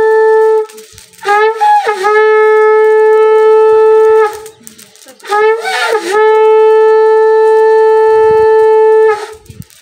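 Conch shell (shankh) blown in long steady blasts on one held tone. One blast ends just under a second in, then two more follow, of about three and four seconds, each starting with a brief wavering dip in pitch before it settles.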